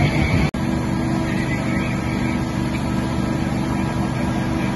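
Engine of fire apparatus running steadily, a low even drone. The sound drops out for an instant about half a second in.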